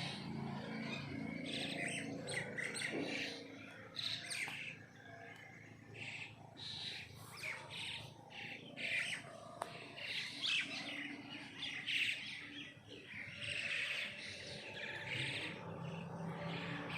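Several small birds chirping, with short, quick calls repeating and overlapping throughout.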